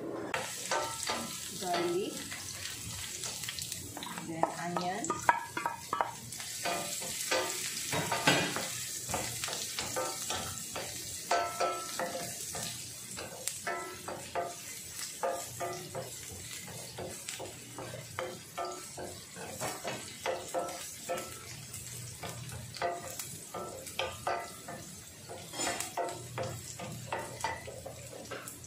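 Chopped garlic and onion sizzling in oil in a nonstick frying pan, with a wooden spoon stirring and scraping them around the pan in many short strokes.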